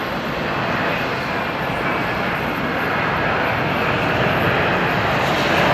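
Airbus A321's jet engines during its landing: a steady rushing noise that slowly grows louder.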